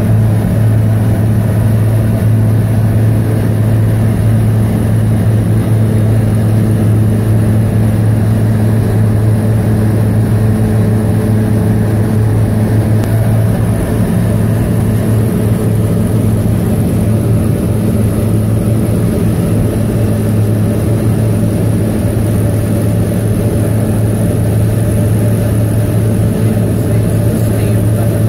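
Kitfox light aircraft's engine and propeller running steadily in level cruise, heard from inside the cockpit as a constant low drone with no change in pitch.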